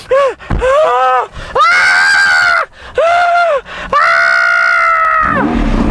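A man screaming with excitement and joy: a few short yells, then two long, high held screams, the second starting about four seconds in.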